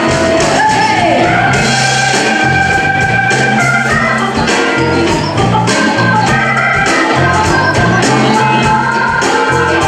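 Live blues band playing an instrumental passage: an organ sound from a Nord Stage keyboard carries held, sliding chords over electric bass and drums.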